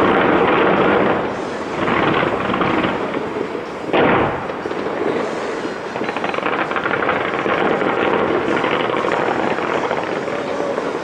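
Aerial fireworks bursting: loud booms at the start, about two seconds in and about four seconds in, then a dense, continuous crackling of many small bursts.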